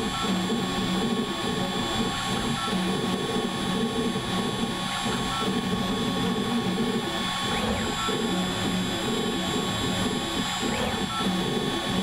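CNC router spindle running with a steady high whine while a single-flute carbide V-bit engraves lettering into aluminium composite (Dibond) panel. Underneath, a lower, uneven buzz from the machine's axis drives stops and starts as the head makes short moves from stroke to stroke.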